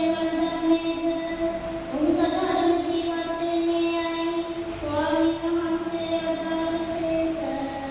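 A child singing a slow melody into a microphone, holding each long note for about two seconds before moving to the next.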